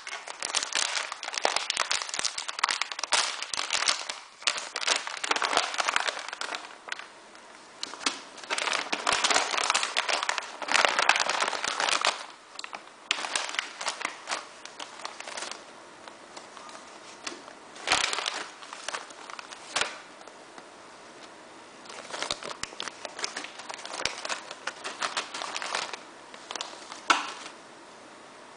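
Clear plastic packets of coiled ABS filament crinkling as they are handled and shuffled, on and off, with a few quieter stretches.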